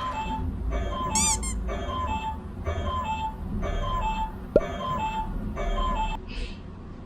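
Electronic alarm clock sounding a repeating two-note falling beep about once a second, cutting off about six seconds in, with a short high warble about a second in.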